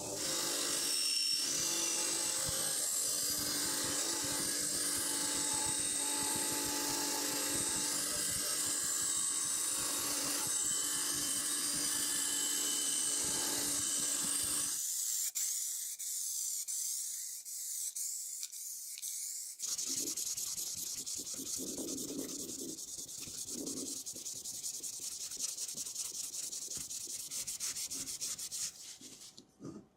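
Abrasive rubbing and sanding on the mini bike's front fork parts, a steady scraping sound that changes character abruptly twice, about halfway through and again a few seconds later.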